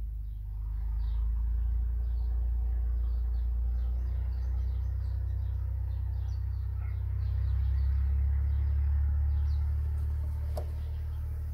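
A steady low mechanical rumble with a hum of several steady tones in it, swelling a little in the second half. Birds chirp briefly and often over it, and there is one sharp click near the end.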